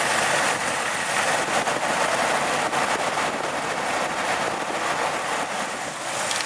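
Jeep 4.0 inline-six engine running steadily above idle, held at raised revs. At these revs the tick from the timing chain cover, which the owner suspects is a stretched timing chain, goes away.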